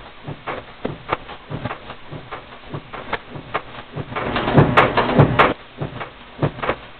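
Filter disk punch machine running: a series of sharp mechanical clicks and knocks, roughly two a second, with a louder stretch of clattering and heavy knocks a little past the middle.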